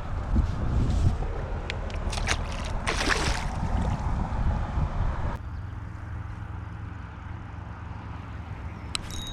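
Wind buffeting an action-camera microphone over flowing river water, with a few clicks and a short hiss about three seconds in. A little after five seconds it drops suddenly to a quieter, steady rush with a low hum.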